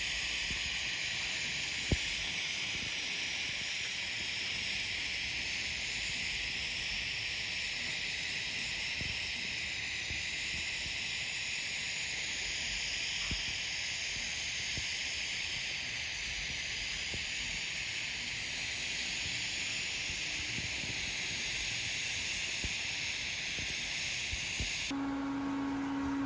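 TIG welding arc hissing steadily at 160 amps while a cap bead is run around carbon steel pipe. It cuts off near the end as the bead is finished.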